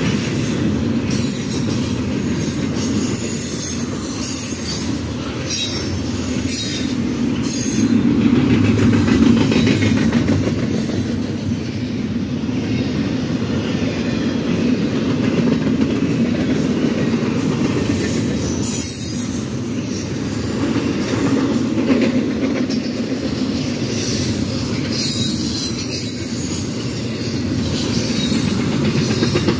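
Double-stack intermodal freight train passing close by: a steady rumble of steel wheels on rail, with a high-pitched wheel squeal that comes and goes and scattered clicks as wheels cross rail joints.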